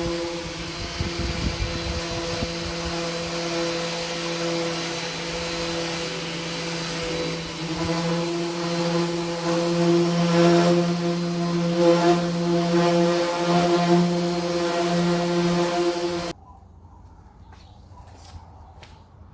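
A power tool's motor running at a steady high speed, with a steady whine over a hiss, getting somewhat louder and rougher partway through, then cutting off abruptly near the end. A few faint clicks follow.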